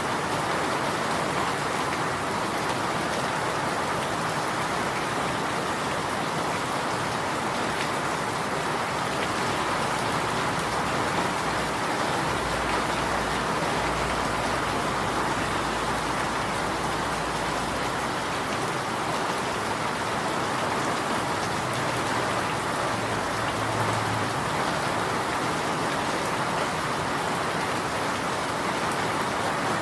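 Steady rain falling and pattering on surfaces, an even continuous hiss with no let-up.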